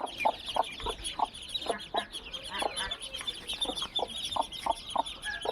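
A flock of chickens clucking and peeping together: short clucks every fraction of a second over a constant layer of high peeps.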